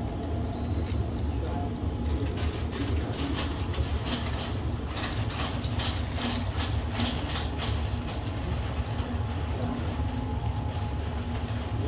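Pineapple-orange juice poured from a plastic bottle into a plastic water bottle full of ice, splashing and gurgling most busily from about two to eight seconds in. A steady low machine hum runs underneath throughout.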